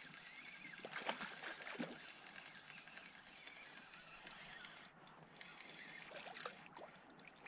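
Faint water lapping against a kayak hull, with a few light knocks on the hull.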